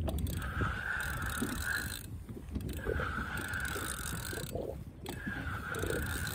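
Fishing reel being cranked, winding in line in whirring bursts of about a second and a half with short pauses between, three times.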